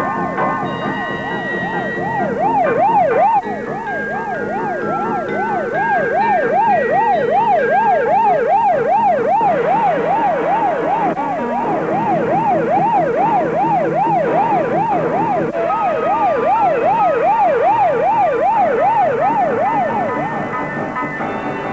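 Police car siren wailing in a fast yelp, its pitch sweeping up and down about two and a half times a second, then cutting off near the end.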